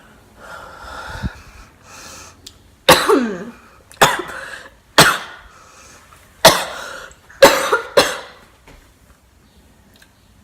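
Coughing fit: about six hard coughs, from something swallowed that went down the wrong way.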